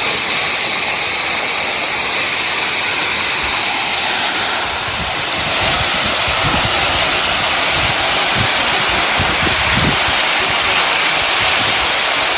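Small waterfall's rushing water, a steady loud hiss, with irregular low rumbles from about halfway.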